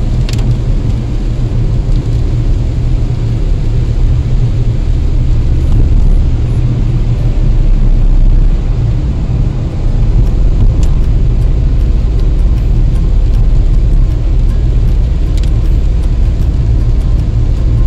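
Steady low rumble of a car driving on a wet road, heard from inside the cabin: engine and tyre noise, with a few faint clicks now and then.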